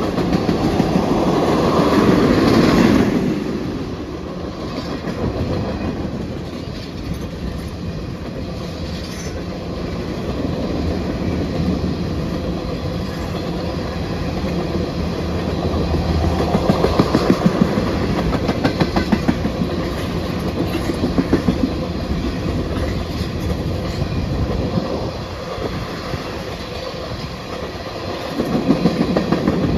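Freight train cars rolling past, a steady rumble with a rapid clickety-clack of wheels over the rail joints that swells louder a few times.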